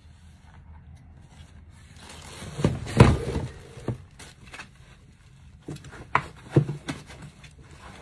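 Unboxing handling noise: the plastic body of a cordless stick vacuum is knocked down onto a table about three seconds in, the loudest sound, followed by a few light knocks and clicks and plastic wrap rustling as packaging is searched through. The vacuum is not running.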